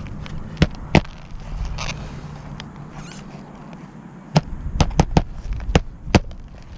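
Hammer driving roofing nails to re-secure a roof shingle: sharp strikes, two within the first second, then a pause, then a quick run of about six more in the last few seconds.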